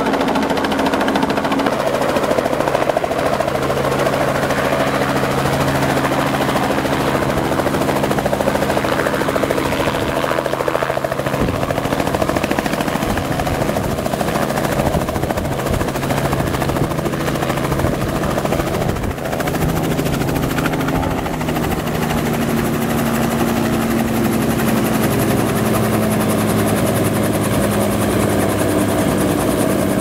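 Robinson R44 Raven I helicopter's six-cylinder Lycoming O-540 piston engine and two-blade main rotor running as it comes in to land, hovers low and settles onto its skids. The engine note shifts about a third of the way through and again near two-thirds.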